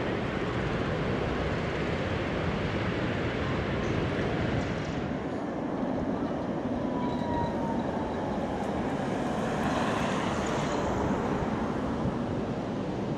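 Articulated electric tram running on street track: a steady rumble of wheels and running gear, with a faint thin whine that falls slightly in pitch about halfway through as a tram approaches.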